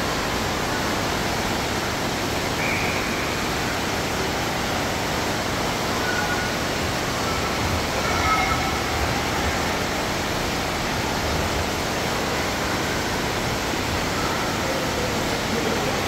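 Steady rushing water noise of an aquapark, even in level throughout.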